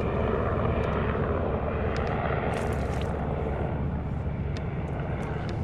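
Steady low drone of a distant engine, with scattered light clicks over it.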